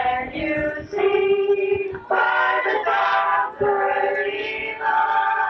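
A group of girls singing together into handheld microphones, in phrases of held notes.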